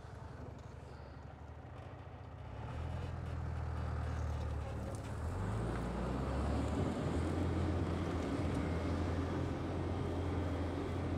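Diesel engine of a loaded MAN tipper truck working under load as it drives out of soft ground where it had got stuck. It grows louder about three seconds in and again about five seconds in, then runs steadily.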